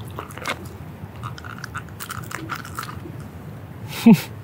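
Small wet clicks and crackles from a sheepshead being handled in bare hands, with one short, loud sound about four seconds in that drops sharply in pitch.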